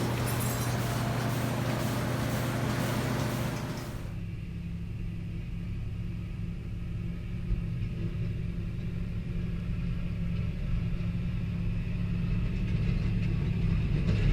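Steady low mechanical hum under a broad hiss; about four seconds in the hiss stops abruptly, leaving a steady low engine-like drone.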